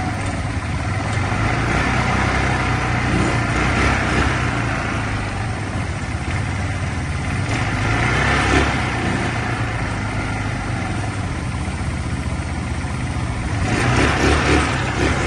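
ATV engines running steadily as a line of quad bikes rides along a dirt trail, a constant low drone under a wash of road and wind noise.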